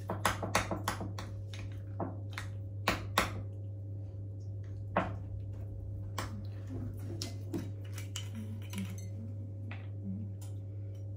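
Metal spoon clinking and scraping against a small glass bowl as plain yogurt is scooped into it: a quick run of sharp clinks over the first few seconds, then scattered clicks, over a steady low hum.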